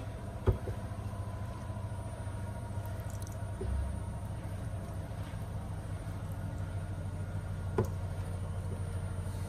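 Marinated chicken pieces being handled and laid into a glass baking dish with gloved hands, with two sharp knocks, about half a second in and near the end, over a steady low hum.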